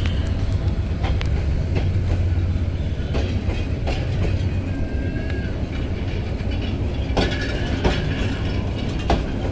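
Train pulling out of the station: a steady low rumble with irregular sharp clicks and knocks along the way.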